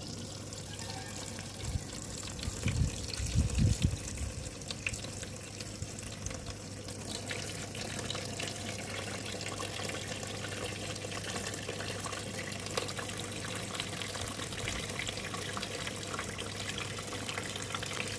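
Water from a small DIY waterfall splashing and gurgling steadily, over a steady low hum. A few low bumps come about two to four seconds in.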